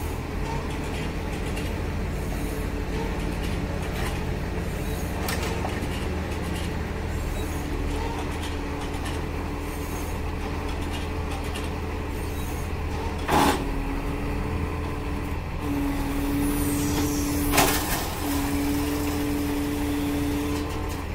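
JCB telehandler's diesel engine running steadily while its hydraulics whine at a steady pitch, louder in the second half as the boom lifts a round silage bale onto a bale wrapper. Two sharp knocks, about 13 and 17.5 seconds in.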